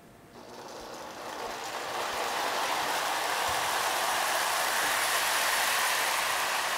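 Lionel NW2 O-gauge model diesel locomotive and passenger cars running on toy train track: the motor and wheels start up with a hissing whir that rises over the first two seconds as the train gets going, then holds steady.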